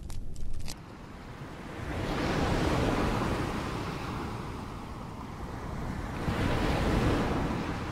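Ocean-waves sound from a white noise machine: rushing surf that swells and ebbs twice, about two seconds in and again near the end. It follows a brief campfire crackle that cuts off under a second in.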